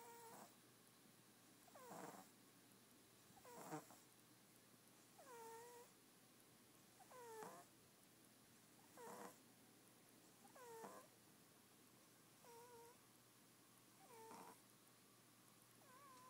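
Domestic cat snoring faintly in its sleep: a soft snore on each breath, about one every couple of seconds, many with a short squeaky whistle.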